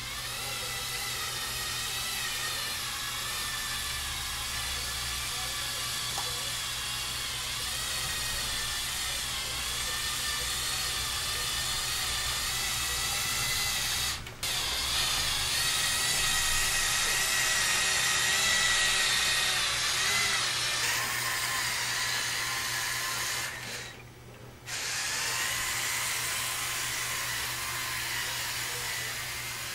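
Electric motors and plastic gears of a motorized Lego Technic truck whining as it drives, the pitch wavering with speed. The whine cuts out briefly about halfway through and again for about a second near the end.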